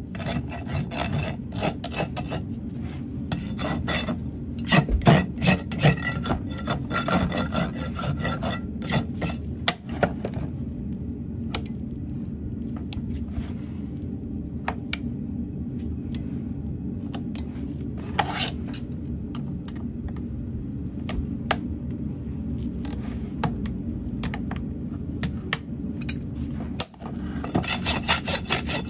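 A farrier's rasp filing a horse's hoof wall in quick back-and-forth strokes for about the first ten seconds. After that comes a quieter stretch with only scattered light scrapes and ticks. The rasping starts again near the end.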